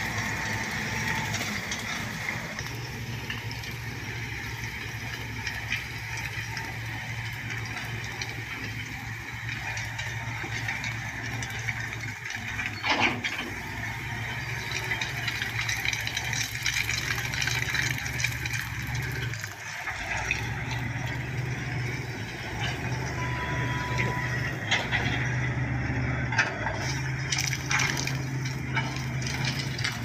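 Shantui SD16 crawler bulldozer's diesel engine running steadily under load as it pushes through brush, with the odd sharp crack of breaking wood, the loudest a little before halfway.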